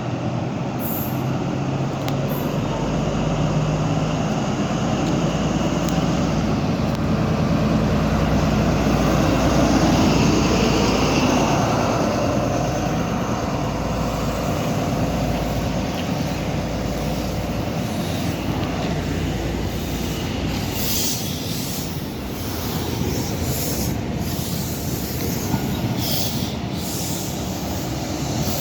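A diesel train running through the station without stopping. Its engine hums steadily and is loudest about ten seconds in. From about twenty seconds in, high wheel squeal comes through.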